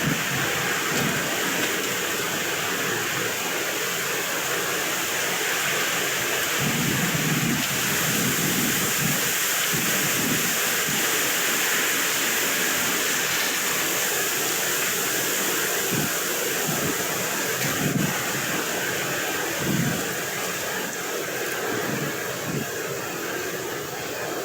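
Wind blowing across the microphone: an even hiss with irregular low rumbling gusts.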